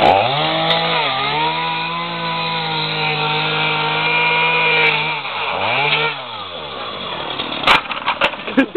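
Chainsaw speeding up and running at a steady pitch, which sags twice as the chain bites into the plastic and metal of a CD player. It runs down about six seconds in, and a few sharp knocks and clatters of the broken pieces follow near the end.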